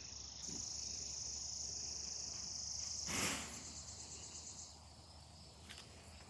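Insects trilling steadily in a high-pitched chorus that breaks into pulses and fades out near the end. About three seconds in there is a brief rush of noise, the loudest moment.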